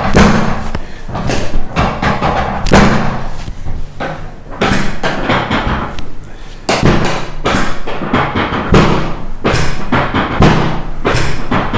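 A run of dull thumps, about one to two a second, over quiet background music.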